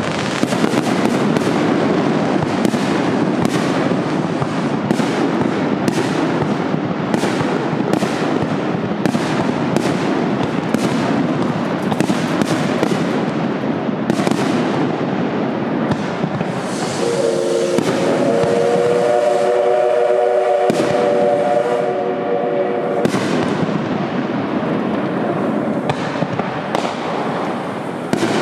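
A dense, continuous crackle of pops and bangs. Past the middle, a D51 steam locomotive's whistle sounds a steady chord for about five seconds, starting with a hiss.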